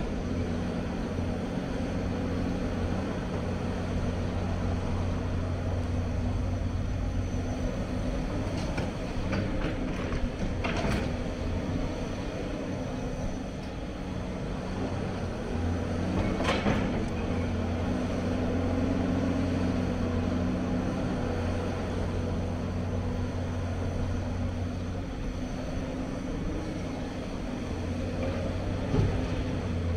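Hyundai crawler excavator's diesel engine running steadily under load, its note shifting as the machine digs, lifts and swings. A few sharp knocks and clanks come from the bucket working rocky rubble.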